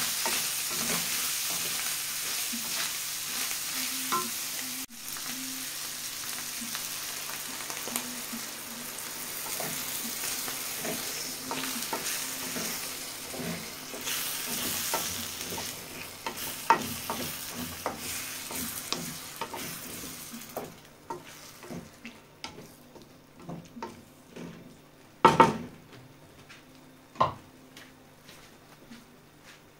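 Shrimp, ground pork and onion frying in an enamel wok with a steady sizzle while a wooden spatula stirs and scrapes through it. About two-thirds of the way through, the sizzle drops away to scattered spatula clicks. Two sharp knocks on the pan come near the end.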